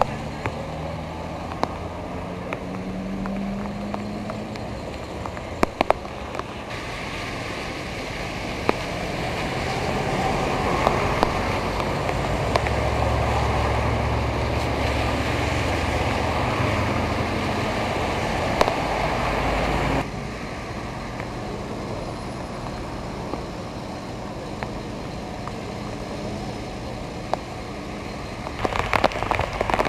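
Vehicle engines and traffic on wet, rain-soaked streets over a steady wash of rain. A low engine hum is loudest through the middle, then drops away to the rain alone, with close raindrop patter starting near the end.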